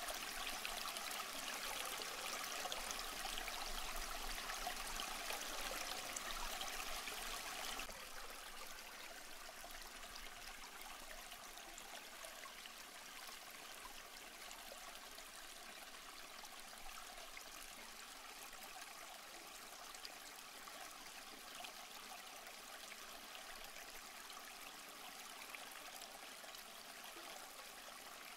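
Aquarium water trickling steadily, a soft continuous splashing of moving water. It turns noticeably quieter about eight seconds in.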